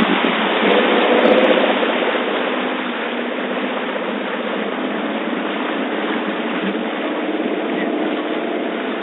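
Truck engine running as it fords a river, under a steady loud rush of water splashing against the truck.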